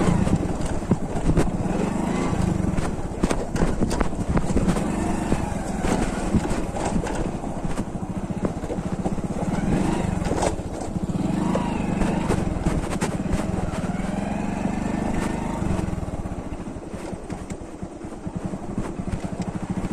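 Hero HF Deluxe motorcycle's small single-cylinder four-stroke engine running under way over a rough, stony dirt track, its pitch rising and falling with the throttle, with frequent knocks from the bumpy ground. It gets quieter over the last few seconds as the bike slows.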